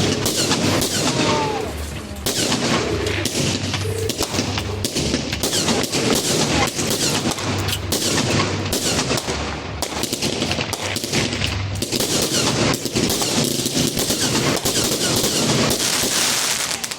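Gemstone Fireworks "The Rage" 100-shot compound firework cake firing: a rapid, continuous barrage of shots and bangs.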